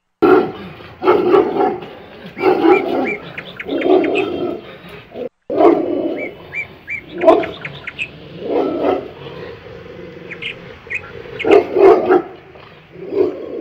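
Rottweiler barking repeatedly in irregular runs of loud barks, about one a second with short pauses, the alert guard barking of a dog watching the street.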